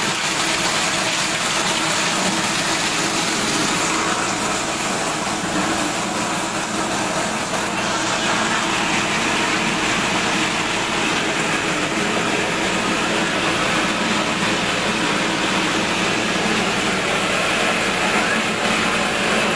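Plastic waste crusher machine running, a steady loud mechanical din with no letup.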